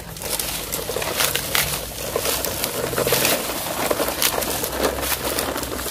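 Plastic toy trucks rolling over dirt and dry leaves: a continuous crackling and rustling with many small clicks and rattles from the wheels and the loose toys in the loads.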